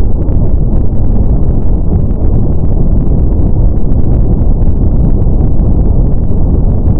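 Steady brown noise: a loud, deep, even hiss with most of its weight in the low end, unchanging throughout.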